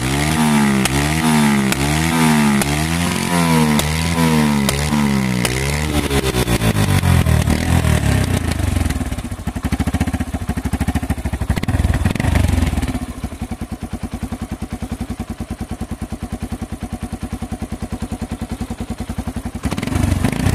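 Yamaha XT125's single-cylinder four-stroke engine through a custom aftermarket exhaust, revved in quick blips about a second apart, then dropping to a lumpy, pulsing idle. It is revved up again once near the end.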